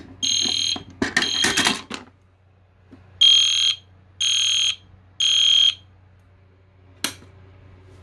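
Edwards Genesis fire alarm horn sounding the temporal-3 evacuation pattern: high-pitched half-second blasts in groups of three with a longer pause between groups. Two blasts, a pause, then three more, and then the horn stops. A single sharp click follows near the end.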